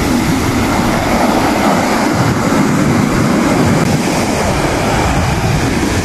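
Ocean surf breaking and washing through the shallows, with wind buffeting the microphone: a steady, loud rush with a heavy rumble underneath.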